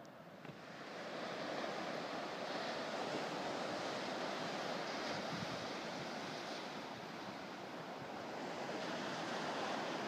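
Atlantic surf breaking and washing up a sandy beach: a steady rushing noise that swells up about a second in.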